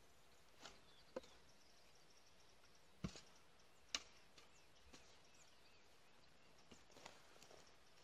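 Long-handled hoe chopping into dry, grassy ground: about six separate sharp strikes, a second or so apart, the loudest two about three and four seconds in.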